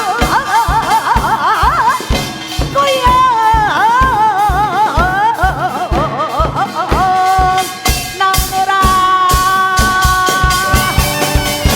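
Live Korean traditional music: a drum keeps a steady beat of two or three strokes a second under a high melody that swoops with wide vibrato, then settles into long held notes from about seven seconds in.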